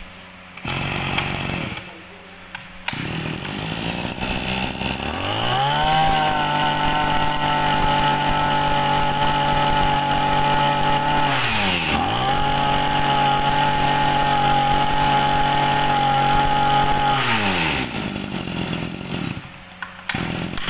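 Small two-stroke Echo 21cc grass trimmer engine idling, then revved to full throttle about five seconds in and held there, with one brief dip in the middle. Near the end it drops back to idle.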